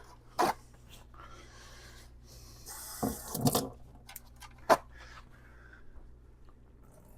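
Scrubbing and rubbing on a textured vinyl-covered case as it is cleaned, with a few light knocks along the way.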